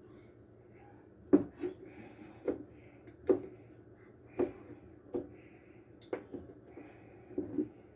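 Kitchen knife chopping cooked chicken on a plastic cutting board: sharp knocks of the blade hitting the board, irregular, about one a second, starting just over a second in.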